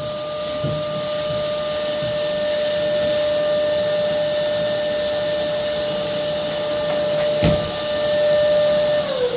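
An electric motor runs with a steady high hum, then winds down in a falling pitch near the end as it is switched off. There is a single knock shortly before the end.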